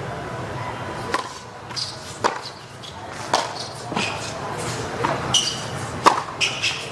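Tennis ball struck back and forth with rackets in a rally on a hard court, starting with a serve: sharp pops about once a second, with bounces between them.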